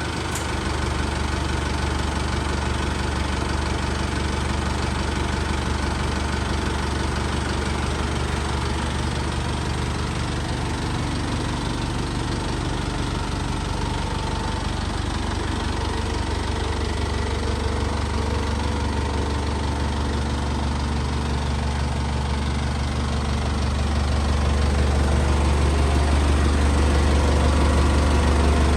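An engine idling steadily with a deep, even hum, growing a little louder a few seconds before the end.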